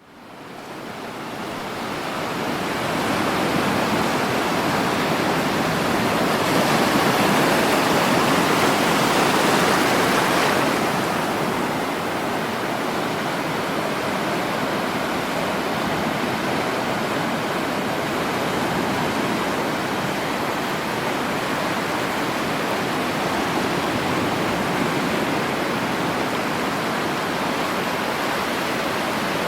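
Sea waves surging and washing in a steady rush of surf. It fades in at the start, one wave swells louder from about six to ten seconds in, then the wash settles to an even level.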